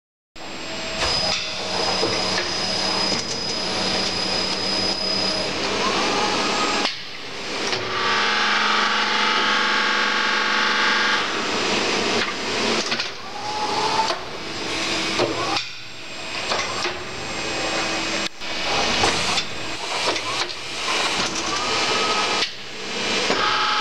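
1996 Korradi VH 1200 universal tool milling machine running: a steady mechanical hum with a short rising motor whine three times. The noise breaks off suddenly and picks up again several times.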